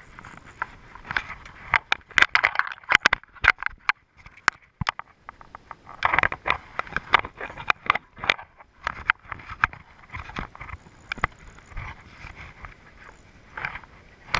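Irregular clicking and scraping from a spinning rod and reel being cranked and handled while a hooked redfish is played, coming in clusters rather than a steady rhythm.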